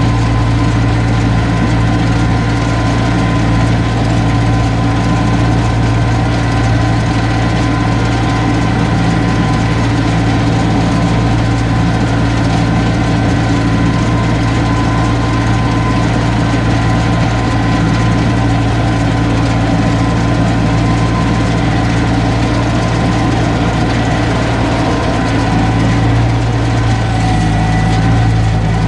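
Tractor engine running steadily under load, driving a round baler through the PTO as it picks up a windrow of grass. A steady whine sits above the engine drone.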